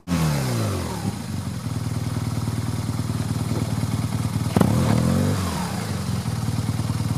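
BMW R 1200 GS Adventure's boxer twin running while its rear wheel spins in loose dirt, the bike bogged in a rut. The revs drop just after the start, hold steady, then rise and fall again briefly about halfway through.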